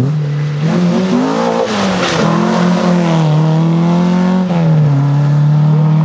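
Rally car engine under hard throttle close by, its pitch rising and falling with throttle and gear changes in the first couple of seconds, then holding high with a step down in pitch about two thirds of the way through.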